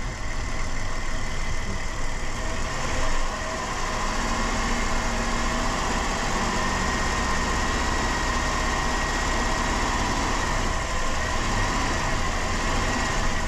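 A 2007 Dodge Caravan's 3.3-litre V6 running steadily while engine cleaner is drawn into the intake through a vacuum line and burned off.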